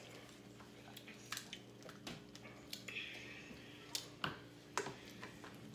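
Quiet, irregular cracks, snaps and wet squishy sounds of crab-leg and shrimp shells being broken and picked apart by hand, with a brief hiss about three seconds in.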